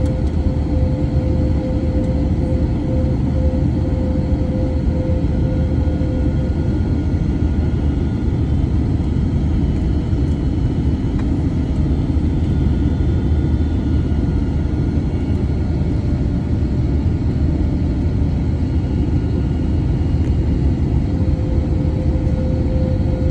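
Airliner cabin noise during descent: the steady low rumble of the engines and airflow, with a steady mid-pitched hum that weakens in the middle and returns near the end.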